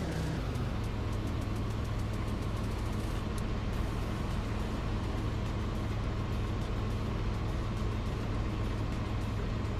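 Steady engine and road noise of a vehicle being driven, a constant low hum under an even rush.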